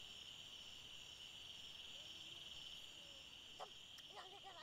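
Faint, steady chorus of crickets trilling, a continuous high-pitched drone, with a couple of faint clicks near the end.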